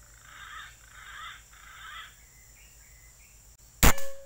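A bird calls three times in short harsh bursts. About four seconds in, a PCP air rifle fires a single sharp shot.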